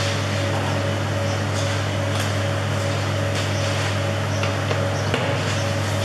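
Steady low machine hum in a workshop, with a few faint clicks and knocks.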